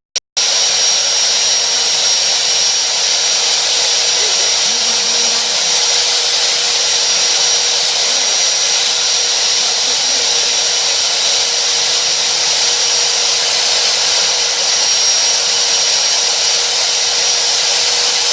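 Portable pipe cutting and beveling machine running steadily with a constant hissing whine. It drops out for a split second at the very start.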